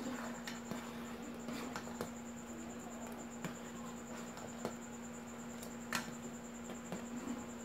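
Metal spoon stirring a pot of dissolving gulaman (agar) mix, with scattered light clinks and scrapes of the spoon against the aluminium pot, over a steady faint hum.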